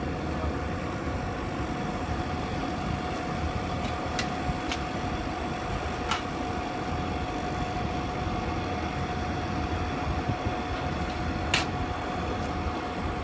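Car engine idling with the air conditioning running on its newly replaced compressor, blowing cold: a steady hum with one thin steady tone, and a few sharp clicks.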